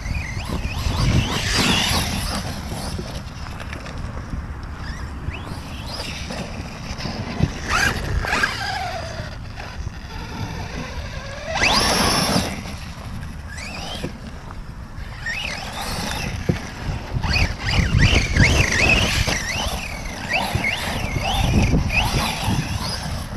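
Reely Raptor 6S electric RC buggy driving hard on loose gravel: its electric motor whines up and down with the throttle, with tyres crunching and spraying grit. The loudest bursts come about twelve seconds in and again from sixteen to twenty-two seconds.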